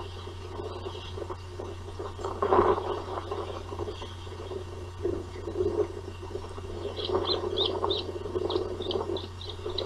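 Osprey calling: a rapid run of short, high chirps, about three a second, starting about seven seconds in. Underneath is a steady low hum and irregular rustling noise.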